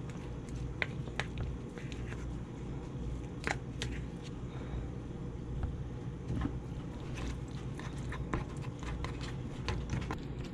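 Metal fork scraping and clicking against the inside of a tin can while flaking canned tuna out, with soft wet squishes as the tuna drops onto and is pushed around soft macaroni and cheese in a foam tray. Scattered irregular clicks over a steady low hum.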